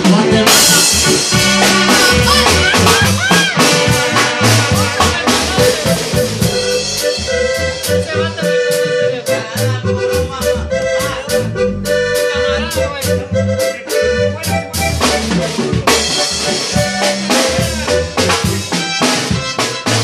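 A live band plays an instrumental passage without sung lyrics: a drum kit keeps a steady beat with cymbal strokes under electronic keyboards holding sustained, accordion- and brass-like lines.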